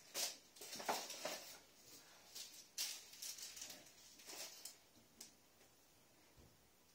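Faint, irregular rustling and scraping handling noises in several short bursts over the first five seconds, then quiet room tone.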